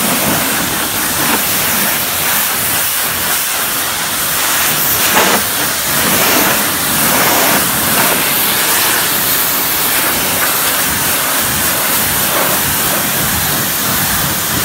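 Karcher K7 pressure washer's high-pressure jet hissing steadily as it rinses snow foam off a car's bodywork and wheel.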